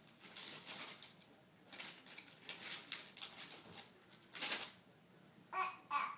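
Plastic baby-wipes package crinkling in short bursts as a baby grabs and lifts it, loudest about four and a half seconds in. A baby's voice starts just before the end.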